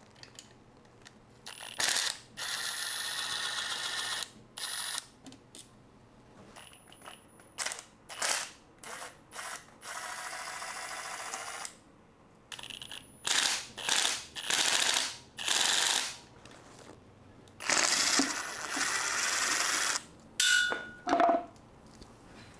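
A ratchet wrench clicking in repeated bursts, some runs lasting about two seconds and others short strokes, with pauses between. A couple of brief pure tones sound near the end.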